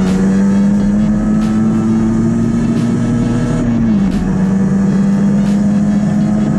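Rieju MRT's 50 cc two-stroke Minarelli AM6 engine under way, rising in pitch as it accelerates, dropping at an upshift about four seconds in, then pulling again. It runs clean without detonation now that the ignition advance has been corrected.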